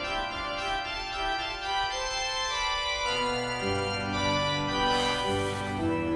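Organ playing slow, held chords that change every second or so, with a deep bass line coming in about three and a half seconds in.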